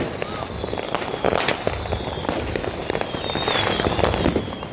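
Fireworks and firecrackers going off in a dense crackle of bangs and cracks, with several high whistles sliding down in pitch from whistling rockets.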